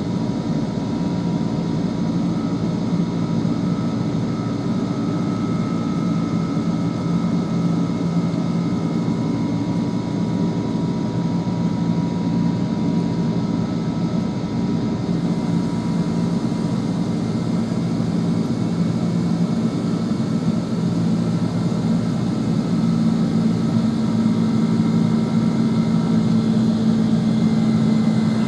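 McDonnell Douglas MD-11's Pratt & Whitney turbofan engines running steadily as the jet climbs after takeoff, heard inside the cabin: a constant deep drone with a steady whining tone above it. The drone grows a little louder and a new low tone joins it in the last few seconds.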